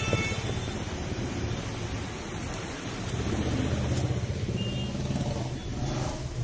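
Steady low outdoor rumble with a few faint, brief high tones.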